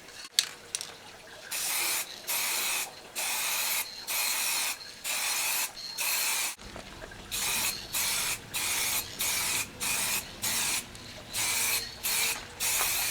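Aerosol spray can of base-coat car paint spraying in a run of short hissing bursts, one roughly every second, with a faint whistle from the nozzle.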